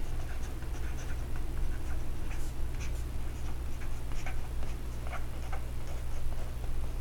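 Marker tip writing on a black board: a run of small scratches, squeaks and taps as each letter is stroked out, over a steady low hum.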